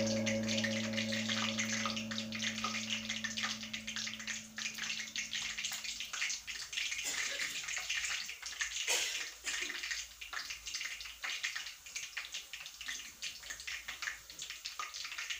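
Mandazi dough pieces deep-frying in hot oil in a stainless steel pot: a steady sizzle full of fine crackles and pops. Steady background music tones fade out over the first few seconds.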